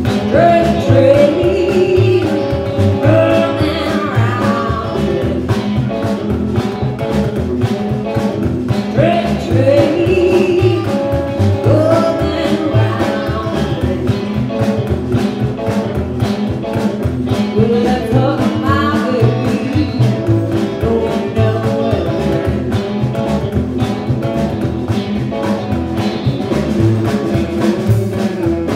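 Live band playing amplified through a PA: a woman singing lead in phrases over an upright double bass, a drum kit with a steady beat, and an electric guitar.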